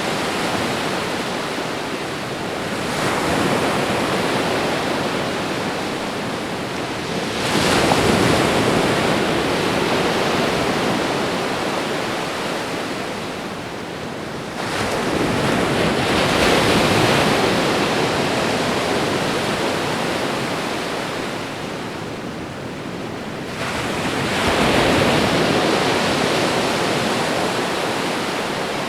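Ocean waves breaking on a shore: four surges of surf, each rushing in suddenly and then slowly washing away, over a constant hiss of water.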